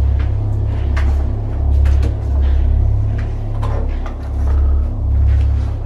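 A steady low rumble that swells and dips in level, with scattered light clicks and knocks over it.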